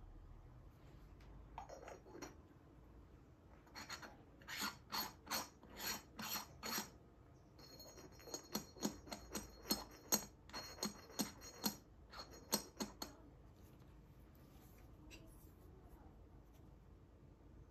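Unglazed Yixing clay teapot lid scraped round against the pot's rim, clay rubbing on clay in short rasping strokes a few a second. The strokes come in two runs, about four and eight seconds in.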